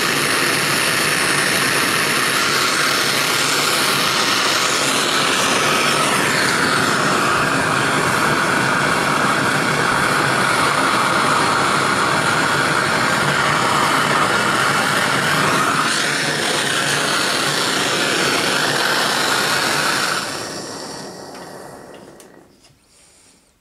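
Bernzomatic JTH7 MAPP gas hand torch burning with a steady hiss as it heats a joint for silver soldering. The tone of the hiss drops about five seconds in and rises again around sixteen seconds, and the sound fades away from about twenty seconds in.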